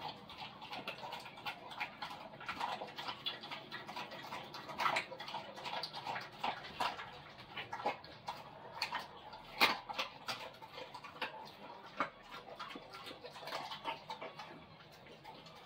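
An animal feeding: an irregular run of sharp clicks and crunches, several a second, the loudest about five and ten seconds in.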